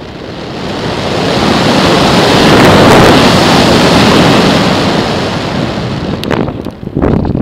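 Wind rushing over the microphone of a camera riding on a small radio-controlled plane in flight. The rushing swells to its loudest about three seconds in and then eases off.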